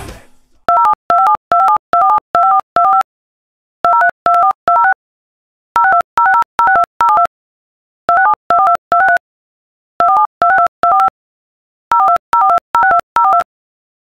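Telephone keypad DTMF tones: short two-tone beeps, each key a pair of steady tones, dialled in six quick runs of three to six beeps with about a second of silence between runs.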